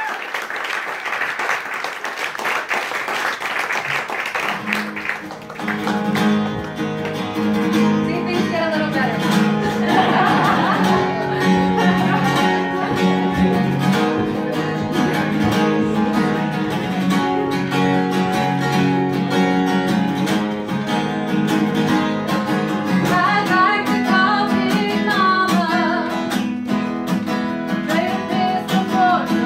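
Applause for the first few seconds, then an acoustic guitar starts playing the song's opening, with a voice coming in over it later.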